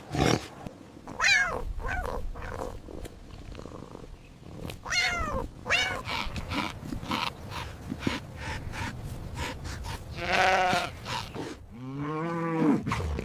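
A sequence of recorded animal calls: several short cries that rise and fall in pitch, then a quavering bleat about ten seconds in and a lower, longer bleat near the end.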